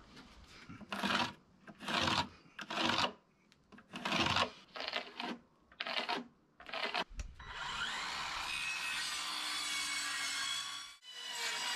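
A series of separate scraping strokes on an 11 mm OSB board as it is marked out for cutting. About seven seconds in, a circular saw cuts through the OSB for about three seconds and then stops suddenly.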